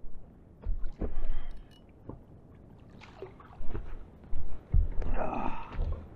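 Water slapping and sloshing against the hull of a small inflatable boat, with irregular low thumps of wind buffeting the microphone. The noise is busiest near the end as a pollock is brought to the side.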